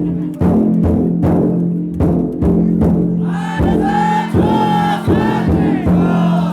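Futon daiko drum float: its large drum beaten in steady strikes, about two to three a second, with the bearers' voices joining in a loud sung chant about halfway through.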